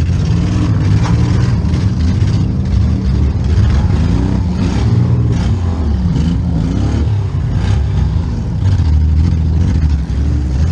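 Demolition derby car's engine revving up and down again and again, with several sharp knocks over it.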